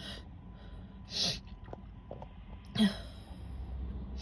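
A woman sneezing suddenly: two short sneezes about a second and a half apart, the second sharper and louder.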